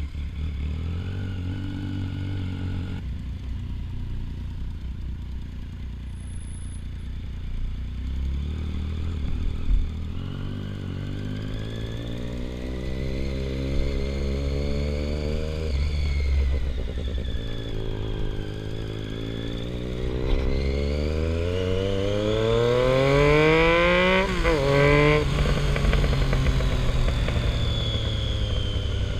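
Triumph Street Triple 675R's three-cylinder engine pulling through the gears while riding: its pitch climbs, drops at a gear change about 16 seconds in, climbs again and drops at another shift near 24 seconds, then holds at a steady cruise. A low wind rumble runs underneath.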